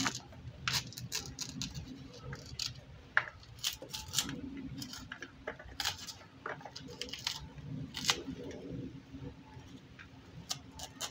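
Kitchen knife cutting and scraping the fibrous leaf sheaths off a small banana corm: irregular short, crisp cuts and scrapes.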